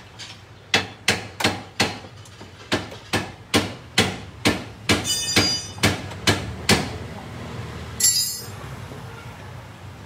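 Repeated hammer blows on metal at the front suspension of a Nissan Sentra during shock absorber replacement, about three strikes a second, some of them ringing, stopping about seven seconds in. A single ringing metallic clank follows about eight seconds in.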